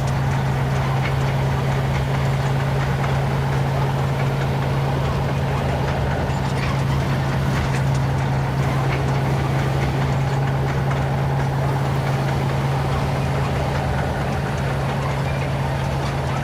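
Tank on the move: a heavy engine's steady low drone with the rumble and faint clatter of its tracks, holding an even level.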